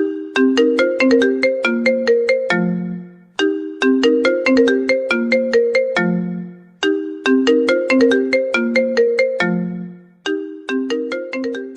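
Mobile phone ringtone: a short melody of quick, struck, fast-fading notes, repeating about every three and a half seconds and each time ending on a longer low note.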